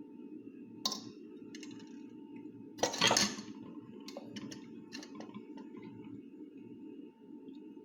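Kitchen utensils clicking and clinking against pots or glassware, with a louder clatter about three seconds in.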